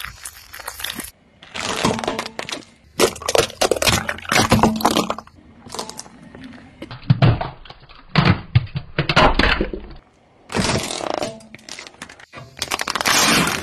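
Plastic packaging, hard candies and a plastic toy cracking and crunching under a slowly rolling car tyre, in several separate bursts of snapping with short gaps between them.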